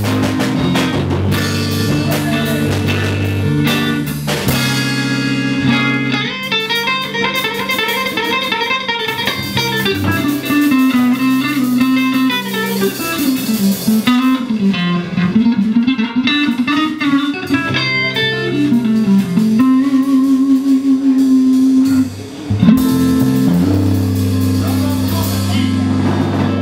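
Live electric blues band: an electric guitar plays a lead line with bent, gliding notes over bass guitar and drum kit. Near the end the band drops out for a moment and comes back in with a loud accent.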